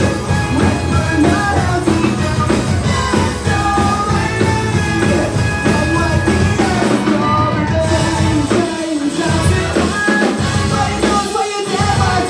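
Live rock band playing a song with a singer. The bass and drums drop out briefly a couple of times near the end.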